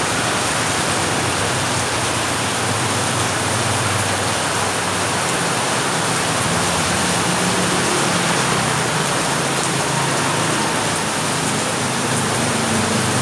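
Heavy rain pouring steadily onto a flooded street, a dense even hiss. Beneath it, the low hum of motorbikes passing through the wet road.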